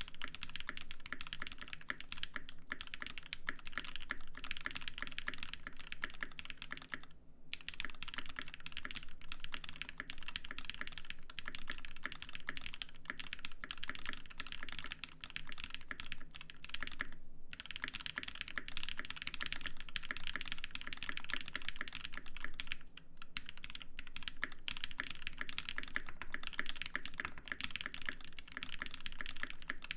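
Fast, continuous typing on a Viendi 8L custom mechanical keyboard, a dense stream of key clacks with two short pauses, about a quarter of the way in and just past halfway.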